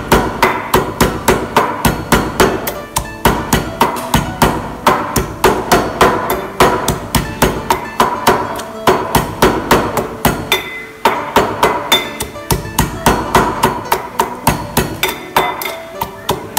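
Stainless steel pestle pounding garlic, chilli and ginger in a small stainless steel mortar: a steady run of strikes, about three to four a second with a few short pauses, each strike making the metal bowl ring briefly.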